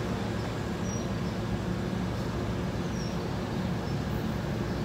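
Steady low engine rumble, with two faint high bird chirps about one and three seconds in.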